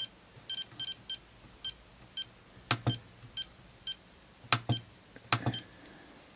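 iCharger 406 Duo battery charger beeping as its scroll knob is turned and buttons pressed to step through the menu: about a dozen short, high beeps at an irregular pace, with a few louder clicks from the knob and buttons.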